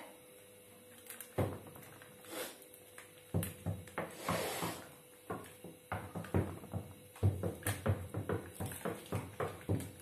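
A small plastic packet being handled, crinkling and tapped in quick short ticks toward the end, among scattered knocks and a brief hiss, in a small tiled bathroom.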